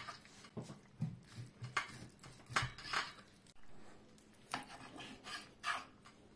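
A kitchen knife slicing raw moose meat, the blade scraping and tapping on a stone cutting board in a series of short strokes, roughly one a second.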